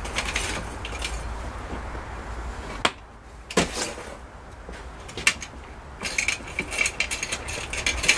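Fabric storage cover of a wall-mounted folding clothes airer rustling as it is handled and fastened shut. A couple of sharp clicks come a little under a second apart, about three seconds in, as its press studs are snapped closed.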